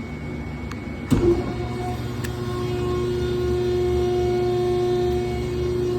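PTR cardboard baler's electric hydraulic power unit humming steadily, with a sharp clunk about a second in, after which the hum is louder and steadier.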